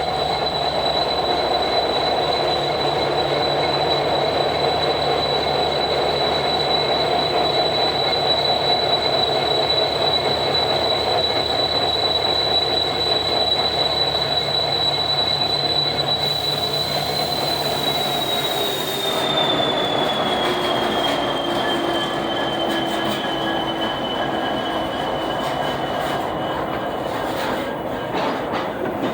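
Norfolk Southern SD60E diesel locomotive running close by, its EMD V16 rumbling under a loud, steady high turbocharger whine. About two-thirds of the way through the whine slides down in pitch and the engine note drops as the throttle comes back, with a brief hiss just before.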